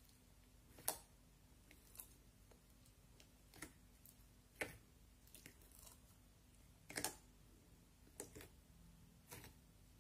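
Foam-bead slime being squeezed and folded by hand in a glass bowl, giving a scattering of short, sharp pops at uneven intervals, with near silence between them.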